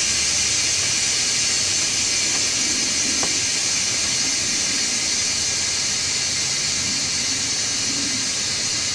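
Firestone Ride-Rite air helper springs being deflated: compressed air hisses steadily out of the system as the pressure is lowered toward 19 PSI, letting the loaded truck settle.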